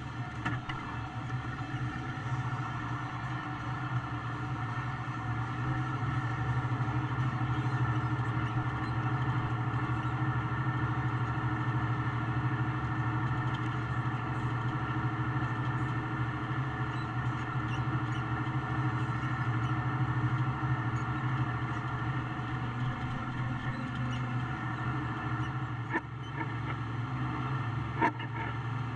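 Farm tractor's diesel engine running steadily, heard from inside the cab as it tows a forage wagon; it grows a little louder about five seconds in. Two sharp knocks near the end.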